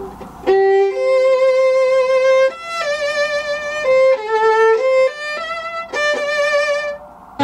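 Solo violin playing a slow melody of held notes with vibrato, breaking off briefly near the end.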